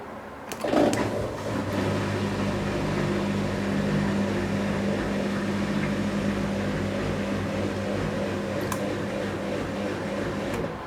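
Miele W2241 washing machine switching on with a click, then running with a steady electrical hum that cuts off near the end.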